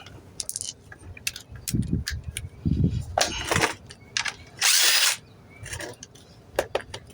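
Hand tools clicking and knocking as a bolt is worked loose from an old chainsaw's handle, with a brief louder rasp about five seconds in.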